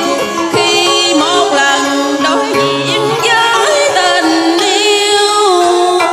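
A woman singing a cải lương (Vietnamese reformed opera) vocal line with a wavering vibrato into a microphone, over amplified backing music.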